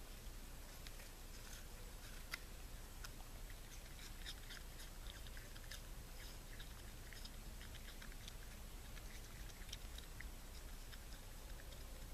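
Raccoon munching on an apple: faint, irregular crunchy clicks of chewing, scattered through the whole stretch.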